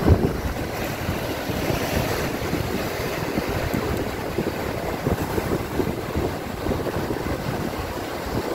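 Sea surf washing on the rocks with wind buffeting the microphone, a steady rushing noise. A single dull thump comes right at the start.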